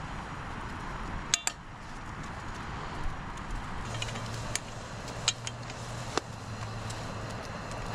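A few sharp metallic clinks over a steady hiss, with a low hum setting in about halfway through.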